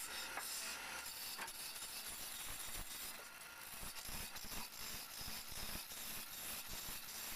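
Wood lathe running while a hand-held chisel cuts grooves into a spinning wooden cylinder: an uneven scraping of the steel tool against the wood.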